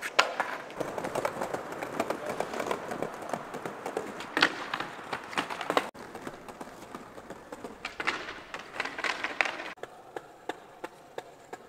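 Skateboard on paving stones: the board clatters down, then its wheels roll over the slabs with a run of sharp clicks and knocks.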